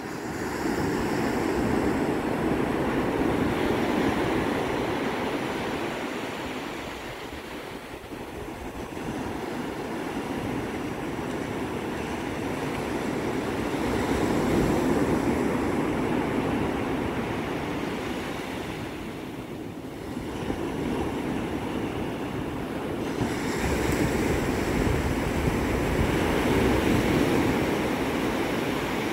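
Atlantic surf breaking and washing up the sand at the water's edge: a steady rush that swells and eases over several seconds as the waves come in.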